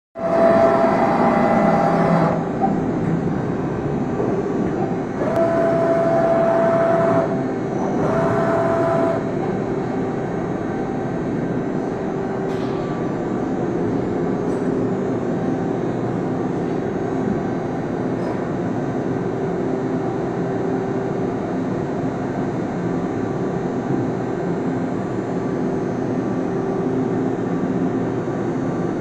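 Romi M23 CNC lathe running, a steady mechanical hum. A higher steady whine comes in three times in the first nine seconds, each time for a second or two.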